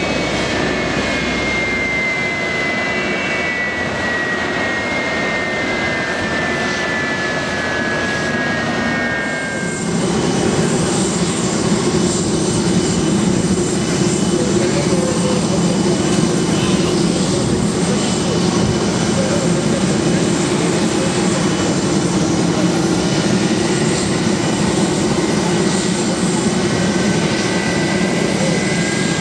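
Boeing 747-400D jet engines running at taxi power, with a whine that falls in pitch. About ten seconds in, a cut brings a louder, deeper steady engine noise as the jumbo sits on the runway, and near the end a whine begins to rise.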